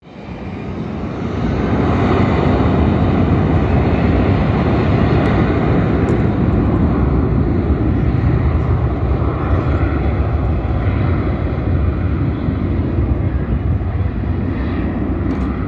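Jet airliner's engines at takeoff thrust during the takeoff roll, a steady loud rumble that builds over the first two seconds and then holds.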